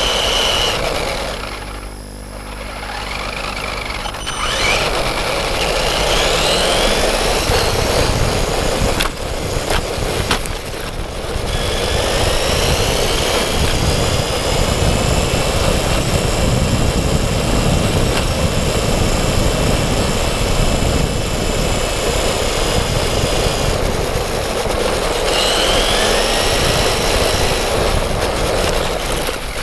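Brushless electric motor and gear drive of a Traxxas E-Revo VXL RC monster truck whining, the pitch rising and falling with the throttle, over a steady rushing noise. The whine drops away briefly about two seconds in, then climbs again.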